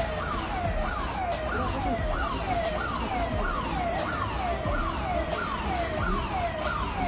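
Siren sounding in fast repeating sweeps, about two a second, each one rising quickly and then sliding down in pitch.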